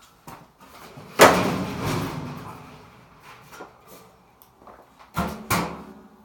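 A loud bang about a second in that rings on and fades over a second or two, then two sharper knocks in quick succession near the end.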